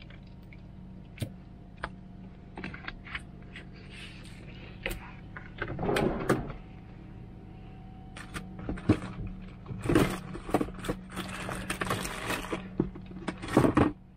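Food and tableware being handled while a meal is dressed and set out: scattered clicks and knocks with rustling, clattering stretches, over a steady low hum.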